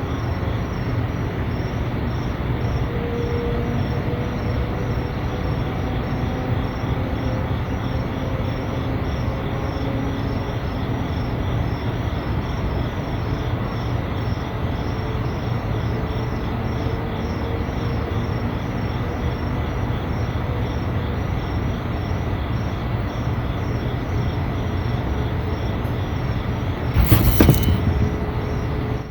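A steady low rumble with faint tones that waver slowly in pitch: the unexplained noise reported by residents, train-like in character. Insects chirp in a quick even pulse throughout. There is a brief loud burst of noise near the end.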